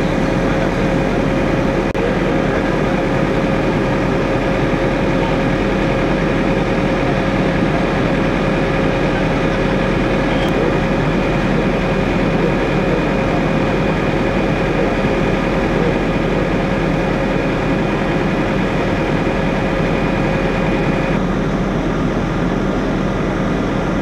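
Fire engine's heavy engine running steadily, with a steady whine over the rumble that stops near the end.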